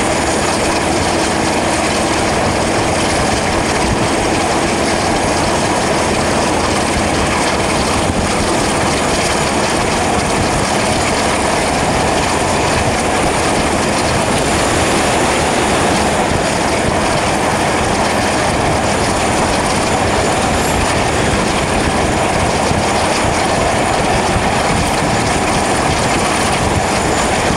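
Class 47 diesel locomotive's Sulzer 12-cylinder engine running under power as it gets away, heard from outside the cab window with the rush of wind and the wheels on the track. The sound is loud and steady.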